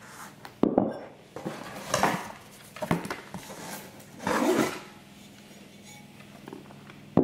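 Knocks, clinks and rustling of a flowerpot and plants being handled, several short separate sounds, the longest about four seconds in, then a quieter stretch.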